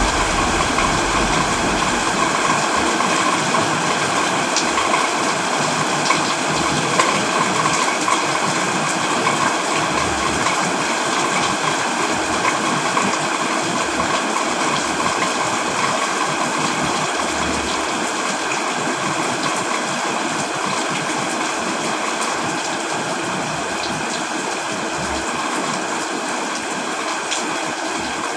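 Steady heavy rain with rushing water, a low thunder rumble dying away in the first two seconds.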